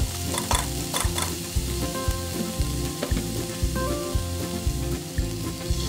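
Ground meat and doubanjiang chili bean paste sizzling in oil in a nonstick frying pan over low heat, stirred with a plastic spatula that scrapes and taps the pan again and again.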